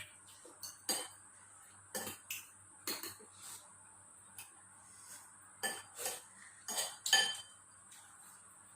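Cutlery clinking and scraping against a bowl while eating: about ten irregular light clinks, a few of them ringing briefly, the loudest near the end.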